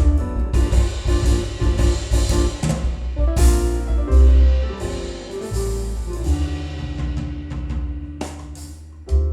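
Instrumental music with a drum kit, bass and keys: busy drumming, a cymbal crash about a third of the way in, then sparser hits over long held bass notes.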